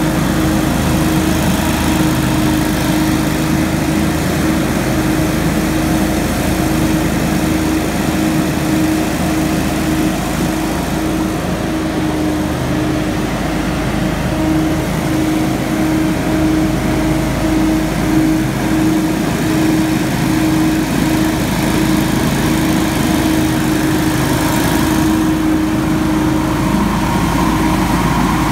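Hurricane X3 stand-on leaf blower running steadily with a constant engine note, its fan blast driving wet leaves across the ground.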